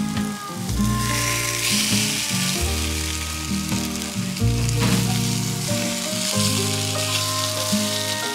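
French toast sizzling in a frying pan, the sizzle swelling about a second in and holding steady, with background music underneath.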